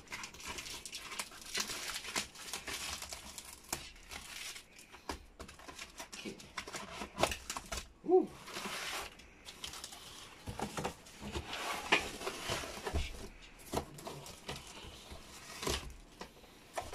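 Clear plastic packing tape crinkling and tearing as it is peeled off a cardboard shipping box by hand, with the cardboard rustling and scraping in irregular bursts and one louder sharp sound about eight seconds in.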